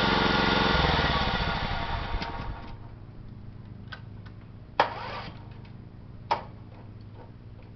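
John Deere 14SE walk-behind mower's small petrol engine running, then winding down and stopping a second or two in. A few sharp clicks or knocks follow, the loudest about halfway through.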